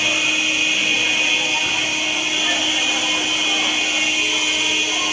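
Basketball game buzzer sounding one long, steady, harsh blast.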